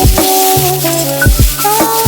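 Background music with a drum beat, a bass line and a melody.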